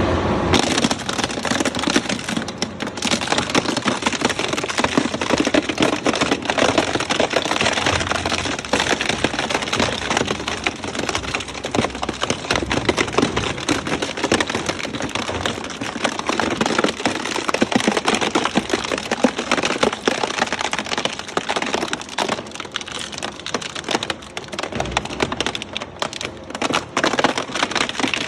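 A shredding machine chewing through material, a loud, continuous, dense crackle of many small cracks and snaps.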